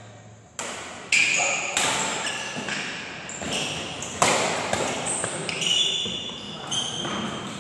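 Badminton rally in a hall: several sharp racket strikes on the shuttlecock, echoing, with sports shoes squeaking on the court floor between the hits.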